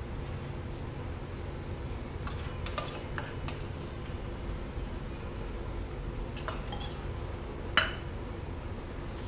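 Kitchen utensils clinking and knocking against dishes in scattered short taps, a few in a cluster early on, more later, and the loudest one near the end, over a steady low hum.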